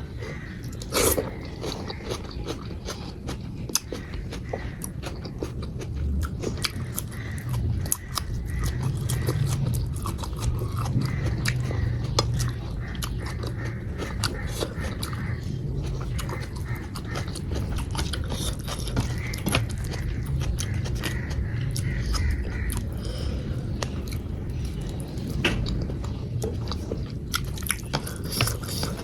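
Close-up eating sounds: chewing and biting into a meal of dal, rice and vegetables, with many wet mouth clicks and an occasional crunch.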